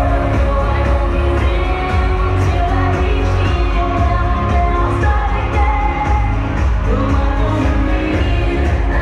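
Pop song with singing over a steady beat.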